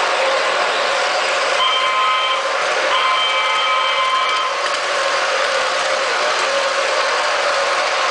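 O gauge MTH R-1 subway model running on three-rail track, a steady hum of wheels and motor, with its electronic sound-system horn sounding twice: a short blast about one and a half seconds in, then a longer one about three seconds in.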